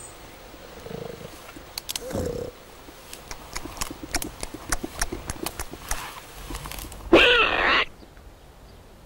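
Wild boar-style grunting calls: two soft low grunts early, faint rustling and clicking in the grass, then a loud drawn-out grunting call with bending pitch about seven seconds in.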